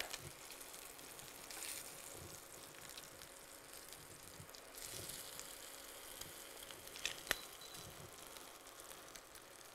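Lamb searing in hot oil in a skillet, a faint steady sizzle, with a couple of light clicks of metal tongs against the pan about seven seconds in.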